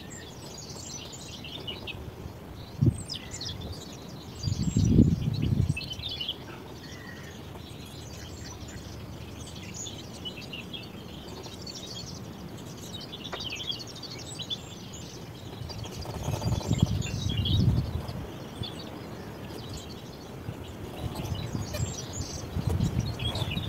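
Small birds singing and chirping throughout. Low muffled rumbles on the microphone come about five seconds in, the loudest moment, and again around seventeen seconds.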